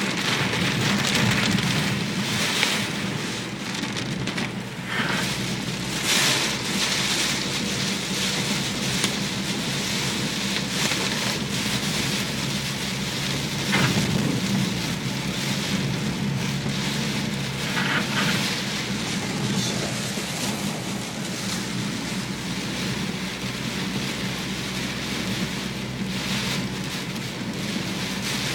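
Heavy typhoon rain falling steadily, a continuous rushing hiss with a few brief louder swells.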